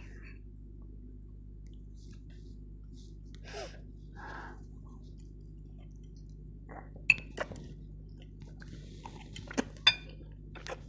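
Quiet eating of black bean sauce noodles with chopsticks: soft slurping and chewing with a few short sharp clicks, the loudest about seven and ten seconds in, over a low steady hum.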